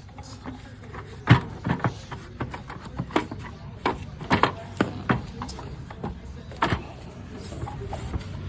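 Irregular clicks and knocks, one sharp knock louder than the rest about a second in, as the pet door frame and its screws are handled and fitted into the wall opening.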